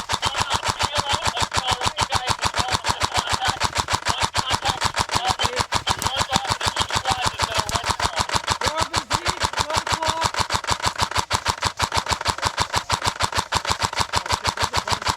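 Airsoft electric gun firing one long, unbroken full-auto stream, a rapid even rattle of shots.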